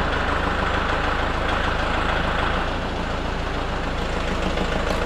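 Kubota L4701 tractor's four-cylinder diesel engine running steadily while the hydraulic three-point hitch raises the rear snow blower. It gets a little quieter about halfway through.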